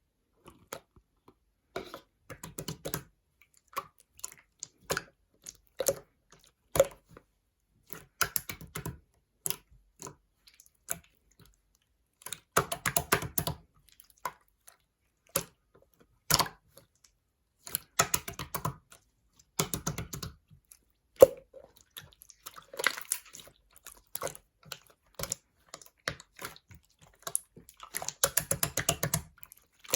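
Slime being squished and pressed by hand: runs of rapid wet clicks and pops every few seconds, with single clicks between them.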